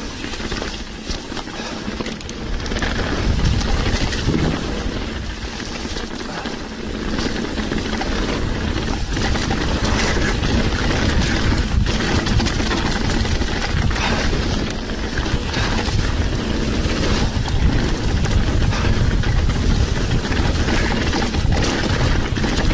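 Wind rushing over an action camera's microphone and mountain bike tyres rumbling over a dirt trail during a downhill run, getting louder about three seconds in as speed picks up, with a few sharp knocks from the bike over roots and bumps.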